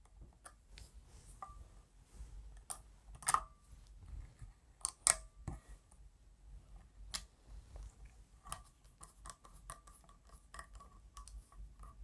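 Screwdriver and lamp socket parts being handled as the socket's terminal screws are loosened: sparse faint clicks and scrapes, with a few sharper clicks.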